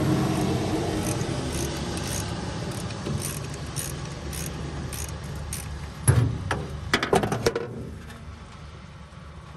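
Ratchet wrench and socket loosening spark plugs in the cylinder head of a 1939 Ford flathead V8: a run of light ratchet clicks about twice a second, then a louder clatter of metal knocks around six to seven and a half seconds in. Under it a low rumble fades away.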